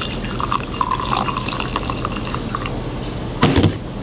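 Hot water poured from a jug into a glass, a steady splashing fill with a ringing tone from the glass. About three and a half seconds in comes one short, loud knock.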